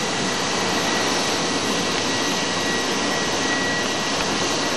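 Steady rushing noise with a thin high whine held on one pitch: aircraft refuelling machinery on the apron running while kerosene is pumped into an MD-11 under high pressure.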